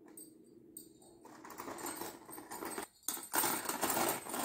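Bangles jangling and clinking against one another and the sides of a plastic tub as small hands rummage through them. The rattling is quiet at first and grows busier and louder over the second half.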